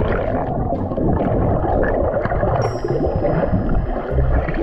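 Muffled underwater gurgling and bubbling, picked up by a submerged camera as a swimmer moves through the water.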